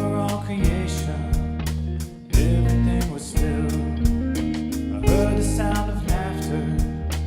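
Worship band music: guitar over sustained bass notes and a steady drum beat, with a melody line.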